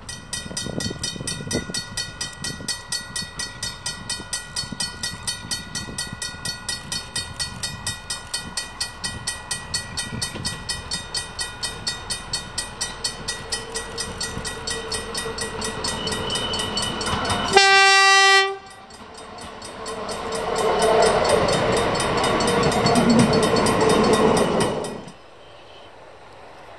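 A heritage railcar gives one horn blast about a second long, about two-thirds through, then runs past with a rumble that swells and cuts off suddenly near the end. Before the horn, a regular ringing pulses about three times a second.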